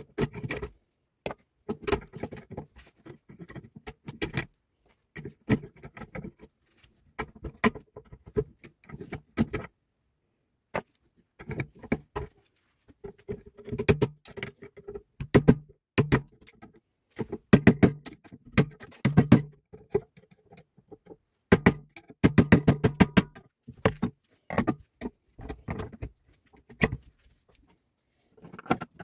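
Metal clanking and tapping from a steel rod and tools striking a Bosch starter motor held in a steel vise as it is taken apart. The sharp metallic knocks come in irregular clusters, with a quick rattling run a little past two thirds of the way in.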